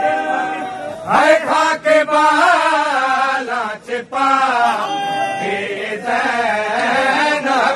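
Men chanting a noha, a Shia mourning lament, in long melodic lines that bend in pitch, with a few short breaks.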